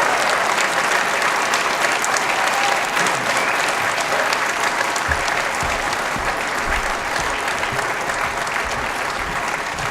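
Audience applauding: dense, steady clapping that slowly fades, with a few low thumps in the second half.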